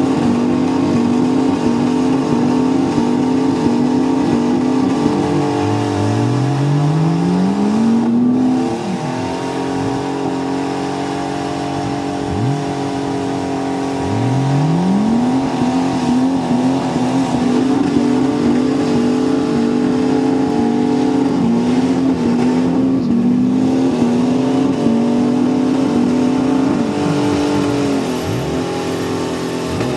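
Jeep Cherokee's engine held at high revs with a fast, pulsing wobble as it churns its tyres in deep mud. The revs drop and climb back up several times.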